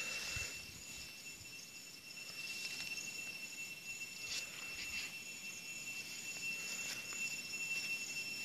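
Insects chirring steadily: one continuous high tone, with a faster pulsing chirp above it.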